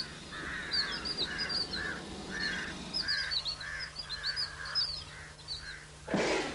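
Several birds calling over and over: quick high chirps mixed with lower, rougher notes about twice a second, over a faint steady low hum. About six seconds in, a short loud burst of noise cuts across the calls.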